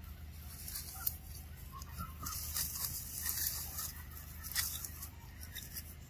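Dry leaf litter and undergrowth rustling in short, irregular bursts as macaques wrestle on the ground, with a few faint, short calls mixed in.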